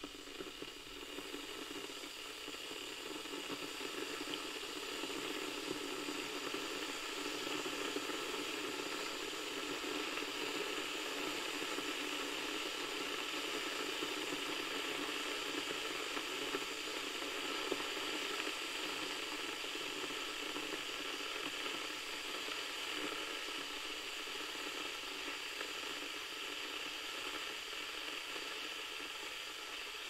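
Water heater heating water towards the boil: a steady hissing noise that grows louder over the first few seconds and then holds.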